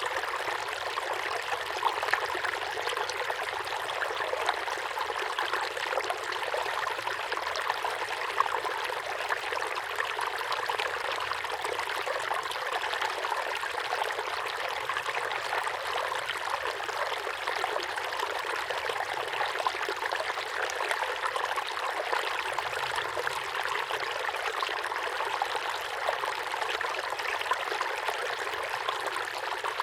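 Small waterfall pouring steadily into a pond: continuous splashing and trickling water.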